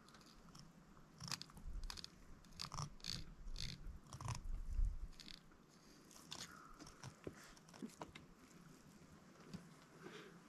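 Irregular crunching and snapping of a knife cutting through a salmon while filleting it, with a few duller thuds a little before five seconds in.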